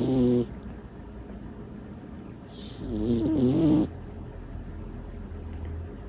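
A small domestic cat snoring loud, big snores: the end of one snore right at the start, then one full snore about three seconds in that lasts about a second, its pitch wobbling, with a hissy edge.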